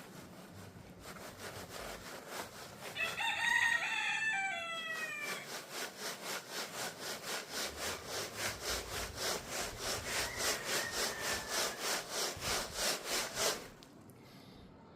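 Thinset mortar powder being shaken through a sieve to strain out lumps that have hardened from long storage: a rhythmic scraping of about three strokes a second that stops suddenly near the end. A rooster crows once about three seconds in.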